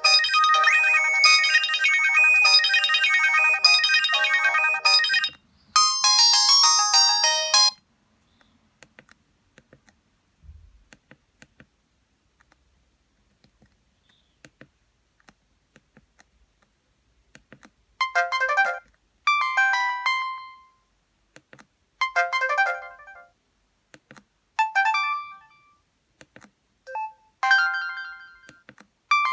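Samsung 1088 mobile phone ringtones playing one after another. A busy electronic melody stops about five seconds in and is followed by a short higher phrase. After a pause with only faint clicks, a new ringtone starts at about eighteen seconds, made of short bursts of notes repeating every second or two.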